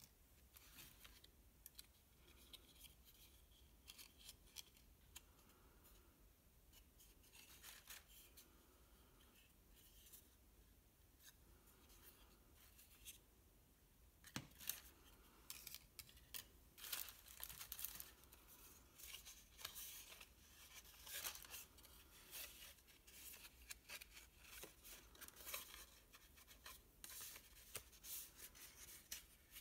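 Folded paper figurines and tissue paper being handled and unfolded by hand: faint rustling and small crackles of the stiff paper, sparse at first and much busier from about halfway through.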